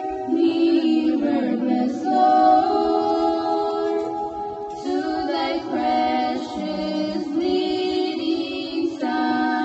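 Two women singing together unaccompanied into a microphone, in long held notes that change pitch every second or two.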